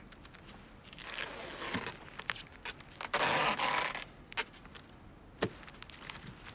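Plastic-wrapped packages rustling and crinkling as they are handled, with scattered clicks and a louder burst of crinkling lasting about a second, three seconds in.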